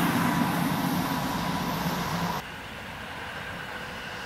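A passing vehicle dying away, loud at first. It cuts off abruptly about two seconds in and is followed by a quieter, steady background.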